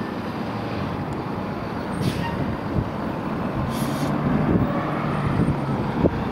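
Jet engines of a four-engine widebody airliner on landing approach, a steady rushing noise that slowly grows louder as the plane nears touchdown.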